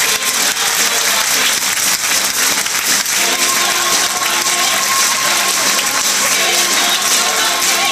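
Theatre audience applauding steadily. About three seconds in, music starts up over the applause.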